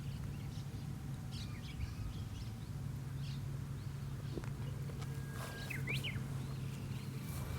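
Wild birds calling: a few short, separate chirps over a steady low hum of outdoor background noise.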